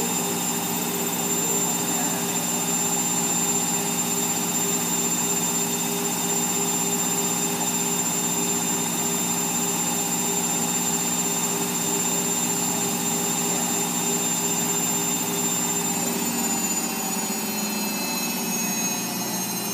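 Whirlpool AWOD 5726 front-loading washing machine spinning a load of towels at high speed, a steady whine from the drum and motor. About three-quarters of the way through, the pitch starts to fall as the drum begins to slow down.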